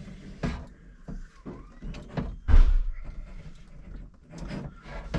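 Knocks, clunks and rustling of parts being handled around a car dashboard as a gauge cluster is refitted, with one heavier thump about two and a half seconds in.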